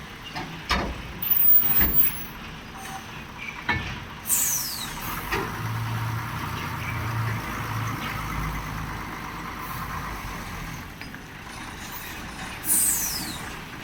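Heavy truck with its engine running, giving two sharp air-brake hisses, one about four seconds in and one near the end. There are a few loud clanks in the first few seconds.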